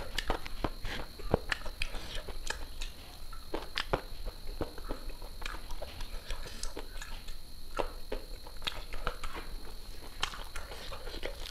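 Close-miked eating sounds: irregular wet clicks and smacks of chewing, and of fingers kneading rice and curry on a plate.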